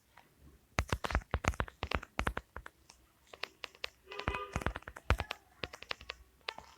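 Rapid, irregular sharp clicks and taps, with a short pitched sound just after four seconds in.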